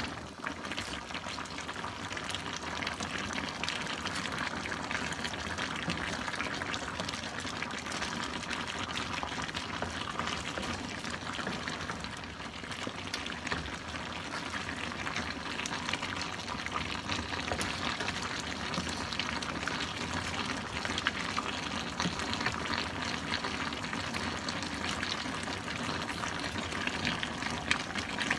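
Crab, squash and green beans in coconut milk bubbling steadily in a wok, the broth reducing as it boils. A wooden spatula stirring the pot makes a few faint knocks here and there.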